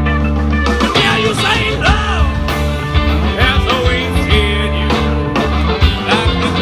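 Live funky indie rock band playing, with a steady bass line, drums and guitar, and a lead melody that slides up and down in pitch over the top.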